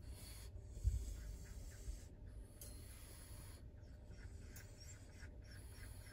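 Faint rustling and rubbing as a nylon leash is handled against a wire dog crate, with a soft thump about a second in, over a low rumble.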